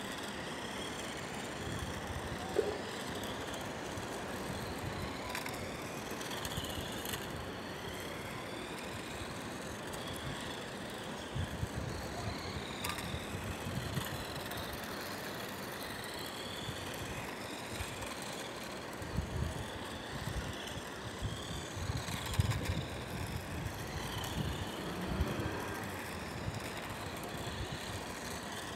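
Radio-controlled car's motor whining, rising and falling in pitch again and again as it speeds up and slows down, with low buffeting of wind on the microphone now and then, most of it in the second half.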